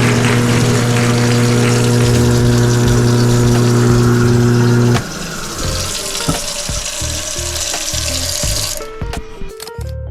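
InSinkErator Badger 5 garbage disposal motor humming steadily with the kitchen tap running into the sink, then switched off about halfway through. The water keeps running a few seconds longer, and plucked-note music starts near the end.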